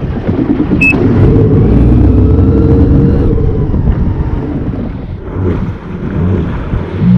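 Sea-Doo personal watercraft engine revving up about a second in and running at high revs, easing off around five to six seconds in and then picking up again. A short high beep sounds about a second in.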